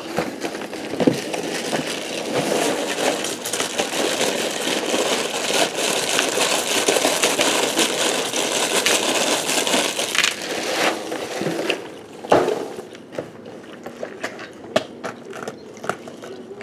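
Raisin Bran Crunch cereal poured from its box into a plastic bowl: a dense rattling patter of flakes and clusters that lasts about ten seconds. A single knock follows near the end, then a few light clicks.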